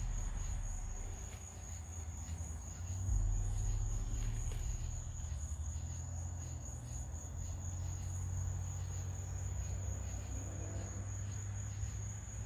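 Crickets chirping in a steady high trill, with a low rumble underneath that grows louder about three seconds in.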